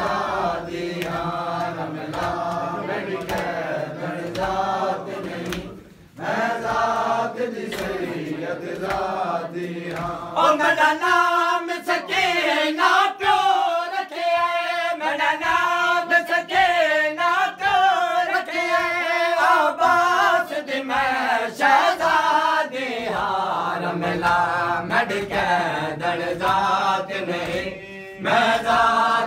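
Shia mourners chanting a noha lament in unison, with sharp hand strikes throughout that fit matam (chest-beating). The chanting breaks off briefly about six seconds in and comes back louder and higher a few seconds later.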